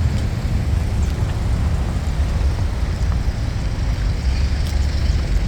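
Steady low rumble of street traffic mixed with wind buffeting the microphone.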